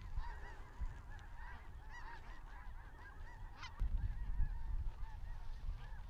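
A flock of snow geese calling, many short honks overlapping in a continuous chatter.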